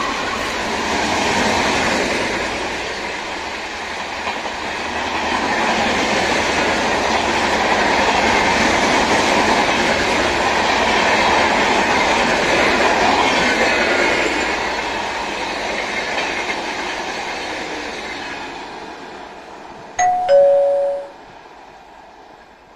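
Express passenger train of red-and-grey coaches behind a WAP-4 electric locomotive running through at speed, its wheels clattering over the rail joints, swelling in the middle and fading as the last coaches draw away. About twenty seconds in, a loud two-note descending chime sounds briefly, like a station public-address chime.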